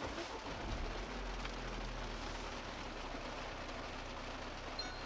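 A Ford car's engine starting up by push-button and settling into a steady idle, heard from inside the cabin. Near the end, a brief electronic beep.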